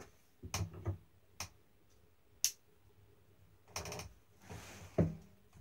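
Scattered clicks and knocks of a cardboard shipping box being handled and tapped on a wooden table, with a short scraping rustle about four and a half seconds in and the loudest knock just after it.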